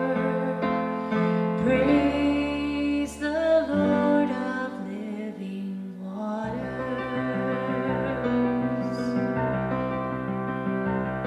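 Slow, gentle music: a song with instrumental accompaniment, its held bass notes changing every few seconds.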